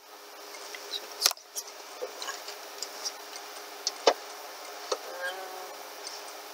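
A few sharp knocks and clicks of cases being handled and set on a wooden shelf, the loudest about a second in and two more around four seconds. Under them runs the steady hum of a loud electric room fan.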